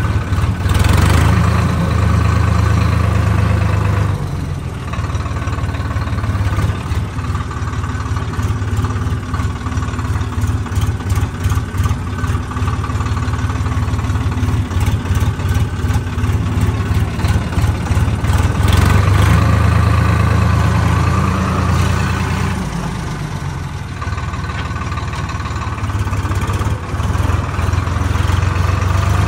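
Swaraj tractor's diesel engine running steadily. It eases off about four seconds in and picks up again near the middle and near the end, with a fast clattering while it runs lower.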